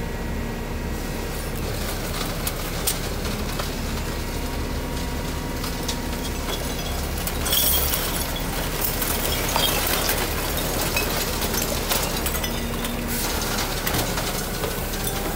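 Natural-gas garbage truck's engine and hydraulics running with a steady hum while its load of recyclables is dumped, cardboard, bottles and cans clattering and clinking onto the pile. The clatter grows busier and louder from about halfway through.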